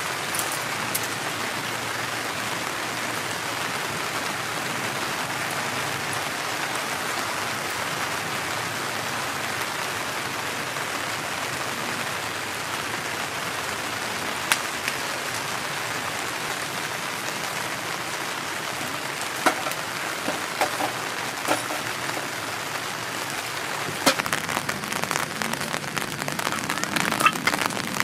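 Steady heavy rain falling on a camping tarp. Past the middle, a small kindling fire starts crackling and popping, with the pops coming thicker near the end.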